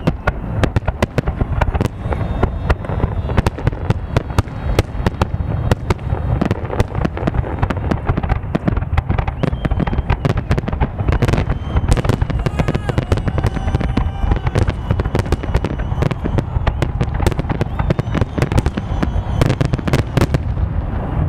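Fireworks salute going off without pause: a dense, rapid barrage of sharp cracks and bangs over a steady low rumble.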